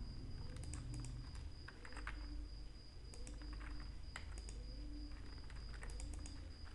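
Scattered clicks of a computer keyboard and mouse, a few keystrokes and button presses spread irregularly, over a faint steady high-pitched whine and low hum.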